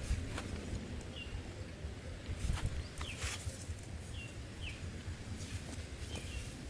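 Short bird chirps, four or five of them spread over a few seconds, over steady outdoor background noise with a low rumble. Two brief rustles or knocks come in the middle.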